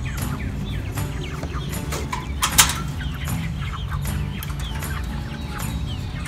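Cornish cross broiler chickens calling, many short falling chirps and clucks in quick succession, with one sharp knock about two and a half seconds in.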